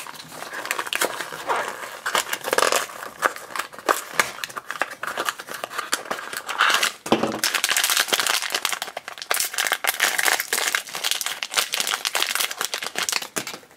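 A small cardboard blind box being torn open by hand, then a foil blind-bag pouch crinkling as it is pulled apart: a dense run of crackles, rustles and small tearing sounds.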